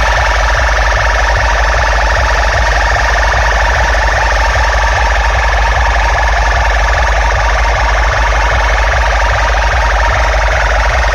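A competition DJ sound system playing a loud electronic siren effect: fast repeating siren sweeps, about six a second, over a heavy pulsing bass.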